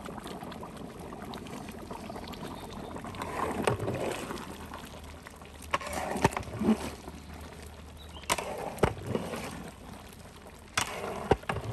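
Long metal paddle stirring chunks of beef in a large steaming aluminium cooking pot: wet sloshing and scraping, with several sharp knocks of the paddle against the pot.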